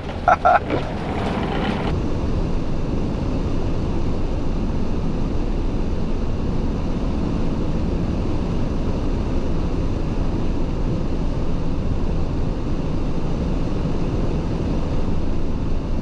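Steady rumble of a Fiat van's engine and tyres driving slowly on a snow-covered road, heard from inside the cab.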